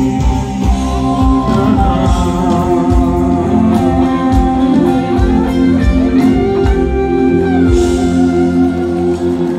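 Live band music played loud over the stage PA system, heard from within the crowd, with a steady drum beat under held notes and a melody line.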